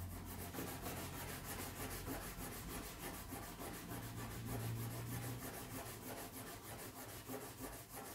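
A block of coarse stropping compound rubbed quickly back and forth into the rough inner side of a leather belt: a faint, continuous scratchy rubbing made of many short strokes, loading the leather as a knife strop.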